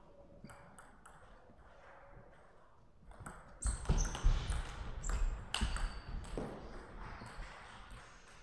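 Table tennis rally: quick sharp clicks of the ball off bats and table, mixed with heavy footfalls and shoe noise on the court floor. It starts about three and a half seconds in and stops about seven seconds in.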